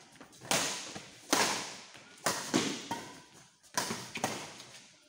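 Badminton rally: rackets striking a shuttlecock in about six sharp hits at an uneven pace of roughly one a second, each ringing briefly in the echo of a large hall.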